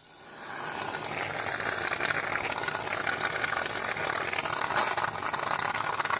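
Aerosol can of shaving foam dispensing in one long spray, a steady hiss with fine sputtering crackle as the foam comes out.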